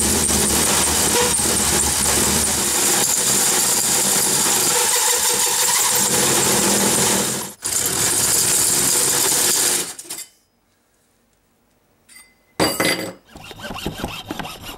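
A metal-cutting hole saw on a power drill grinding its way through metal, a steady high-pitched screech. It stops for a moment about seven and a half seconds in, runs again and stops about ten seconds in. After a pause comes a short loud noise, then the strokes of a hand saw cutting PVC conduit near the end.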